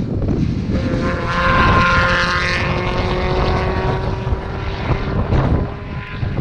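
Hillclimb race car's engine passing at speed, loudest about two seconds in, its note sliding a little lower as it moves away. Wind buffets the microphone throughout.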